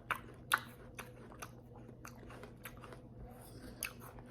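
A person biting and chewing a crisp raw apple close to the microphone: a run of sharp crunches, the loudest about half a second in, then smaller crunches while chewing.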